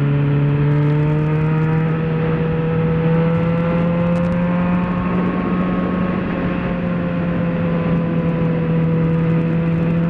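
Yamaha XJ6's 600 cc inline-four engine running steadily at highway cruising speed, its pitch rising slightly over the first few seconds and then holding.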